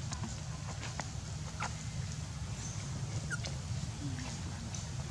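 Baby macaque giving a few short, high whimpering squeaks, the distress cries of an infant calling for care, over a steady low rumble.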